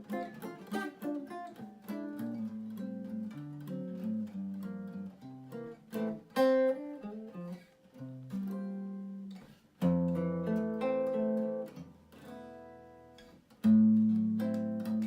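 Acoustic guitar playing a bossa nova instrumental break: plucked melody notes and chords that ring and fade, with full chords struck about ten seconds in and again near the end.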